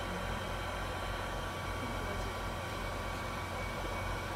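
Steady hum and airy fan noise from an IC rework machine running, with a faint constant whine and no change throughout.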